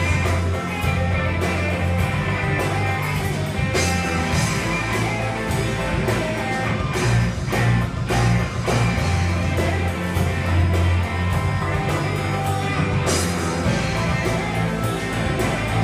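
Live punk rock band playing an instrumental passage: several electric guitars, bass guitar and drums, with a steady drum beat under sustained guitar chords.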